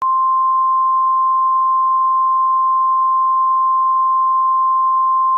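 A single steady electronic alert tone just above 1 kHz, held for about five seconds and cutting off abruptly. It is the attention signal of a mock Emergency Alert System broadcast.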